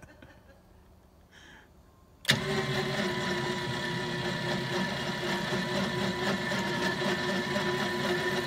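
Small gas engine of a portable cable winch starts suddenly about two seconds in and runs steadily at high speed with a constant whine.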